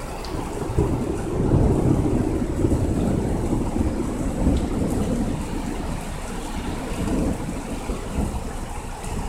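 Thunder rumbling over steady rain, swelling about a second in, fading away, then rising briefly again near the end.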